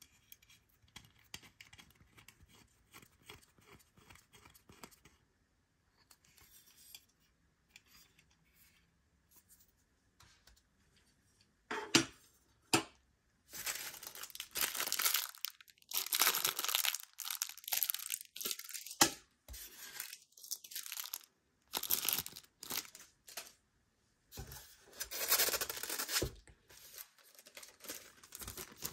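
Polystyrene foam packing and plastic wrap being handled: faint scratchy rustling at first, then from about twelve seconds in loud tearing, crinkling and rubbing in short, broken strokes as foam inserts are pulled from around the model.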